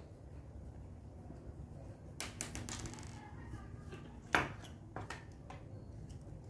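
Small metal parts of a homemade PCP air rifle clicking and clinking as they are handled and fitted. There is a quick cluster of clicks about two seconds in, a sharper knock a little past four seconds, and a few lighter clicks after, over a low steady hum.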